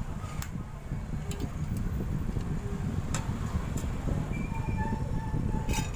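Steady low background rumble with a few light clicks and taps as an amplifier circuit board is handled on a workbench.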